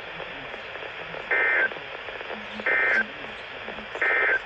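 Three short bursts of EAS SAME digital data tones over NOAA Weather Radio, each about a third of a second long and spaced about 1.3 s apart, over faint radio hiss. Bursts this short are the end-of-message code that closes a weather alert broadcast.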